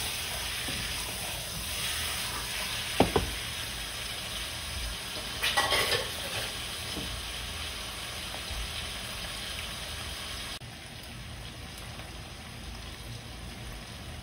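Chicken pieces frying with onion and garlic in a nonstick pot, a steady sizzle throughout. A wooden spoon stirs and knocks against the pot a few times, sharply about three seconds in and with a louder stir around six seconds. The sizzle steps down abruptly about ten seconds in.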